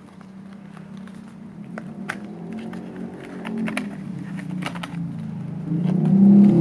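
Cardboard product box being opened and handled, with light clicks and rustles, over a low hum that swells louder near the end.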